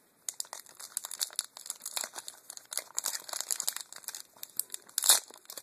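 Foil booster pack wrapper crinkling as it is handled, a quick run of short crackles with a louder one near the end.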